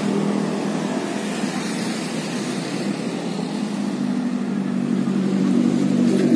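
Road traffic beside the bridge: a vehicle engine running with a steady hum, growing louder over the last couple of seconds as a minibus draws near.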